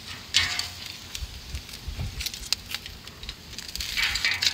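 Bacon sizzling and crackling on the grate of a charcoal drum smoker, with metal tongs clicking against the grate and strips as they are moved. The sizzle flares up briefly about half a second in and again near the end.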